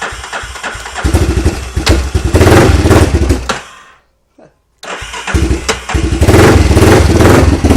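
2004 Yamaha Warrior 350 ATV's single-cylinder four-stroke engine, cold, firing and running unevenly. It dies about four seconds in, then catches again under a second later and runs on. It won't stay running because it is still cold.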